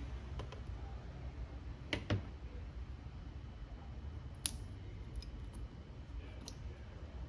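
Small repair tools clicking against a phone's parts during disassembly: a few sharp separate clicks, the loudest pair about two seconds in and another sharp click a little past halfway, over a low steady hum.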